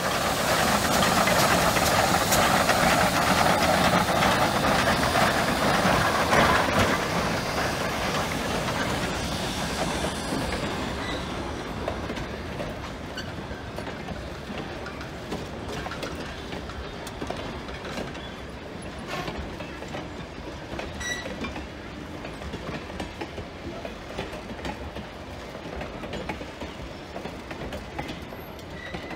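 A geared steam locomotive passing close by, loud for the first six or seven seconds. Then its train of passenger coaches and a caboose rolls past more quietly, the wheels clicking over the rail joints.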